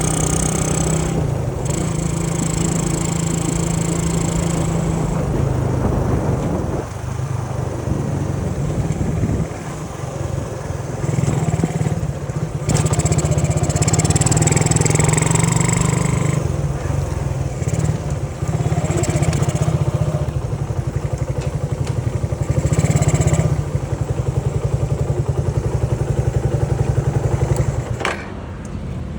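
Tuned Honda C70 motorcycle's small single-cylinder four-stroke engine running under way, its note rising and falling with the throttle. It drops off suddenly near the end.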